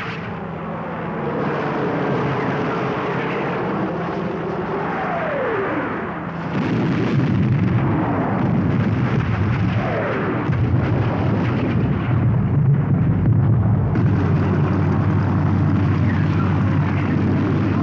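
Film battle soundtrack: a military jeep's engine running amid explosions, with a few falling whistles. About six seconds in the din turns louder and fuller and stays so.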